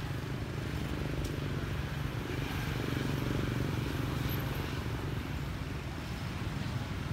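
A steady low engine hum, like a motor vehicle running nearby.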